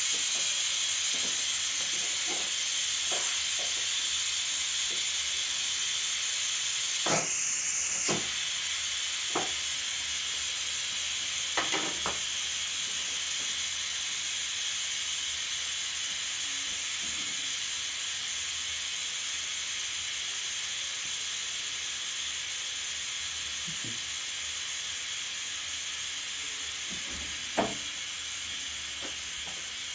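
Steam hissing steadily from a pressure cooker cooking green grams, slowly fading, with a few faint clicks.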